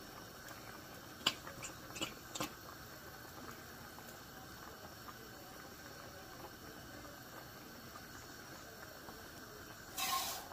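A few light clicks and knocks of a metal soup can being handled over the pot, about one to two and a half seconds in, then a faint steady background. Near the end, a short burst of tap water running into the emptied can of vegetable soup to rinse out what is left in it.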